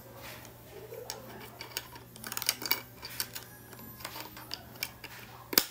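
Small clicks and taps of letter pieces being handled and fitted into an alphabet puzzle board, with one sharp click near the end.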